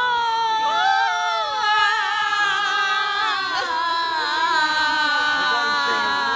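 Several girls singing loudly together close to the microphone, holding long notes that slowly sag in pitch.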